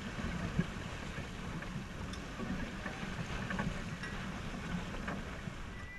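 Rustler 42 sailing yacht under way: a steady rush of water along the hull and wind buffeting the microphone, with a few light knocks.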